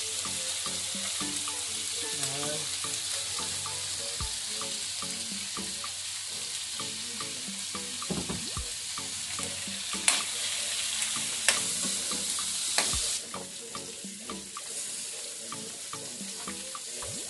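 Meat and onions sizzling in a wok, stirred with a metal spatula that clanks sharply against the pan a few times about two thirds of the way through. The sizzle then drops quieter.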